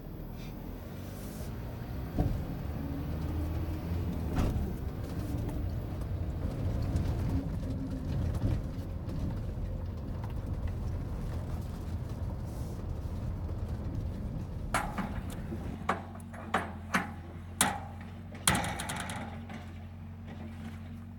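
Flatbed truck driving slowly on a gravel track, heard from inside the cab as a steady low engine and tyre rumble with a couple of bumps. About three-quarters of the way in, a run of six sharp clicks and clanks follows as ratchet straps holding the load are worked.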